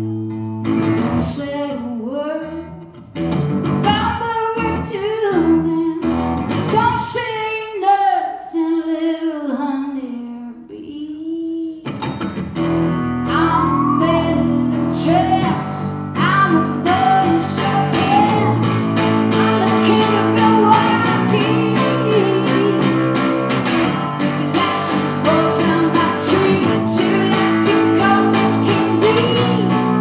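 Live rock music: a woman sings lead over electric guitar, sparse at first, and about twelve seconds in the rest of the band comes in with drums and bass and the sound fills out.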